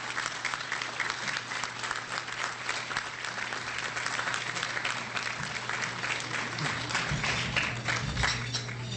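Audience applauding: many hands clapping steadily to welcome a speaker to the podium.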